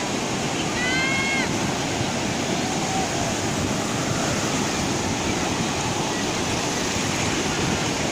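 Ocean surf breaking and washing onto a beach, a steady rush of waves.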